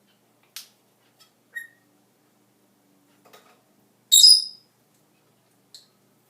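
Meyer's parrot vocalizing: a few short clicks and a brief whistle note, then one loud, shrill squawk about four seconds in.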